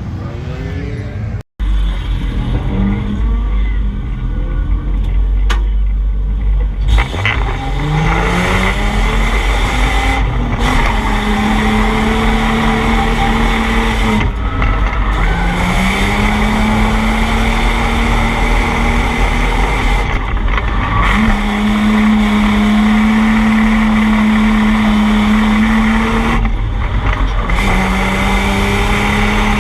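Drift car's engine revving up and held at high revs in long steady pulls, dropping off and climbing again several times, with tyre squeal from the car sliding.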